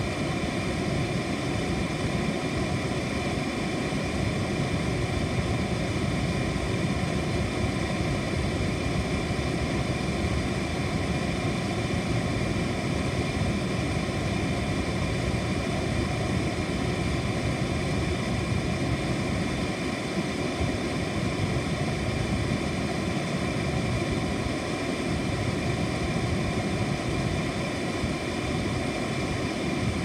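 Air conditioner running steadily: an even rushing noise of the fan and airflow, with faint steady high tones over it.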